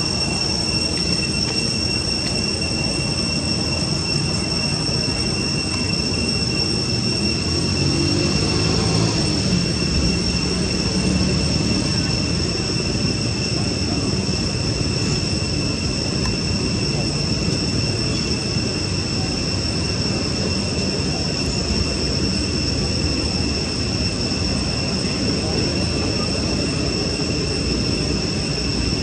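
Continuous background noise with a steady high-pitched drone of two held tones that does not change. A brief low pitched sound comes in around eight to eleven seconds in.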